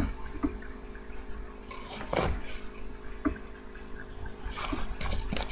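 Baby clothes and a fabric diaper-bag pouch being handled: a few short rustles and soft knocks over a faint steady hum.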